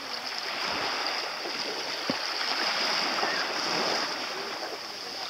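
Small waves lapping in shallow sea water at the water's edge: a steady wash with a high hiss over it. A single sharp tap about two seconds in, and faint distant voices.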